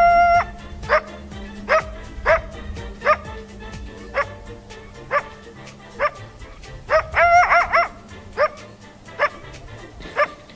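Coyote ending a long howl, then giving a series of short barks about a second apart, each jumping up sharply in pitch, with a quick run of yips a little after seven seconds.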